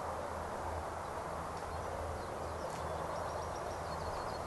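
Outdoor ambience: a steady low rumble and hiss, with faint birds chirping in the background, mostly in the second half.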